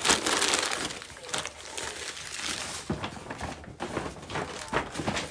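Gift bag and tissue paper rustling and crinkling as a present is unwrapped, loudest in the first second, with a few light knocks from handling.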